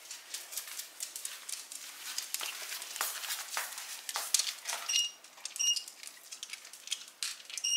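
Dogs' claws clicking and pattering irregularly on a hard wood-look floor as two small dogs walk about, with a few short high squeaks in the second half.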